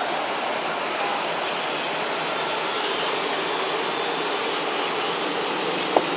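Steady, even hiss-like city background noise, with a single short click just before the end.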